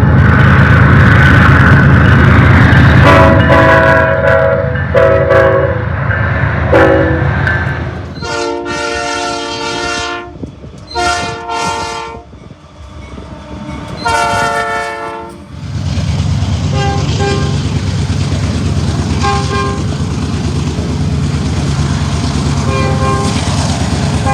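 Locomotive five-chime air horn sounding a chord, several short blasts at first over a passing train's low rumble. Then three long, clear blasts with no rumble, and later fainter blasts as the rumble returns.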